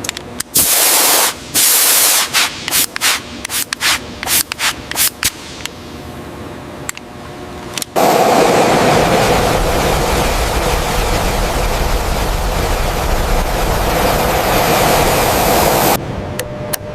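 Rough rubbing or sanding-like noise: a quick series of short strokes, then one continuous stretch of about eight seconds that cuts off abruptly.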